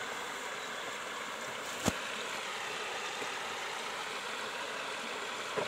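Steady rushing of river water flowing over rocks, with one sharp click about two seconds in.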